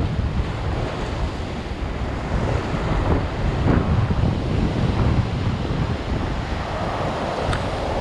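Ocean surf washing and breaking over shore rocks, with wind buffeting the microphone as a steady low rumble.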